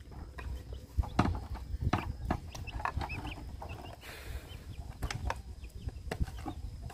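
Knocks and clatter of large plastic water jugs being handled and capped, with chickens clucking in the background.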